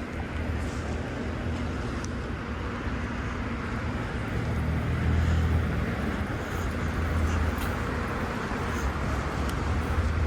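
Road traffic on wet pavement: a steady hiss of tyres with an engine rumble that swells about halfway through as a vehicle passes.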